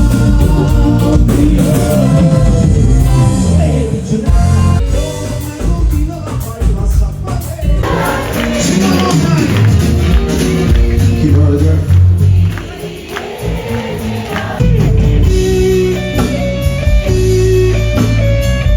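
A band playing with a singer, loud and continuous; the sound changes abruptly about eight seconds in, brighter and fuller in the upper range.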